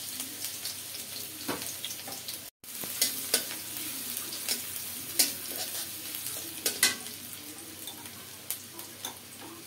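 Chopped onion frying in hot mustard oil in a pan, sizzling steadily, while a spatula stirs and clinks against the pan every second or so. The sound cuts out for a moment about two and a half seconds in.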